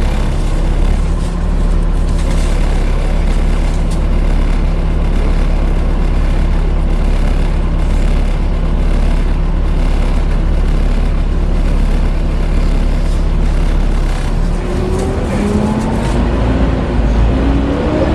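Cabin noise inside a Volvo B7TL double-decker bus: a loud, steady rush of the engine cooling fan ('hoovering') over the running engine. From about 15 seconds in, the engine note rises in steps as the bus accelerates.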